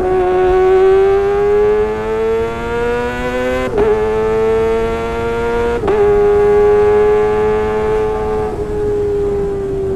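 Kawasaki ZX-25R's 249 cc inline-four under way at high revs through a Sportisi Motorsport SRX aftermarket exhaust: a high engine note that climbs slowly and drops sharply twice, about four and six seconds in, as it shifts up, then holds and eases slightly lower near the end.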